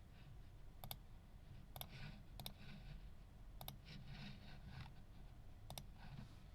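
Faint handling noise: five sharp clicks at uneven intervals, with soft rustling between them.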